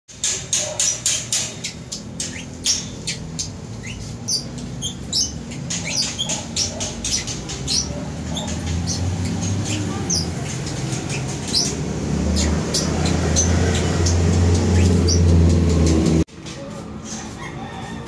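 Small birds chirping in quick, sharp notes over a low rumble that grows louder and cuts off suddenly about sixteen seconds in.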